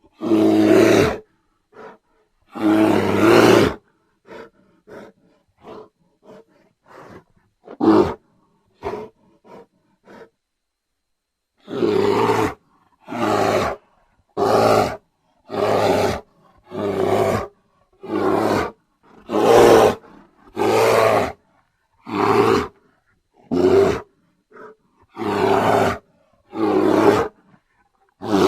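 Bear roaring: two long roars near the start, then a few short, scattered calls, then a long series of evenly spaced roars, about one every second and a bit.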